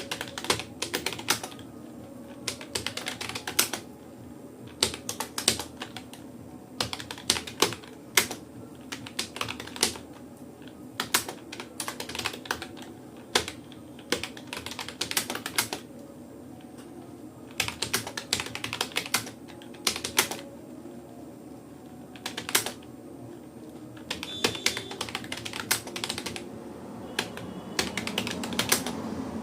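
Keys clacking on a Rapoo computer keyboard during a typing test: keystrokes come in quick irregular runs of a few seconds, broken by short pauses.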